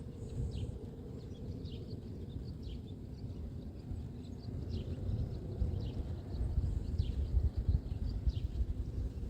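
Strong wind buffeting the microphone as a low, gusty rumble that grows stronger in the second half, with birds chirping over it in short, high, falling notes, roughly once or twice a second.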